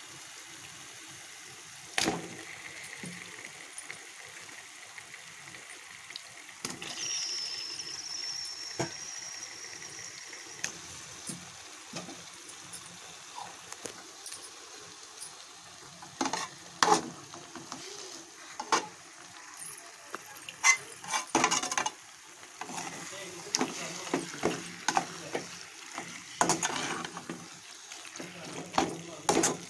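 Onion-tomato masala sizzling gently in a metal pan, then raw chicken pieces being stirred into it, with a metal spoon knocking and scraping against the pan repeatedly from about halfway through.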